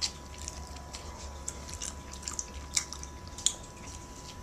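A person chewing a ham-wrapped Hot Pocket, with scattered wet clicks and smacks from the mouth. A steady electrical hum and a thin high tone sit underneath.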